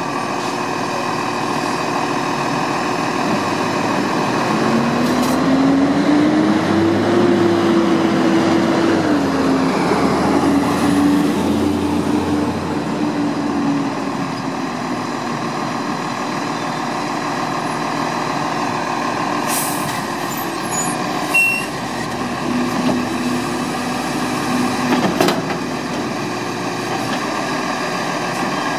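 Automated Lodal side-loader garbage truck's engine running while stopped. It revs up about five seconds in, holds raised for several seconds, and revs up again near the end as it works the hydraulics. Short air hisses come from the truck about two-thirds of the way through.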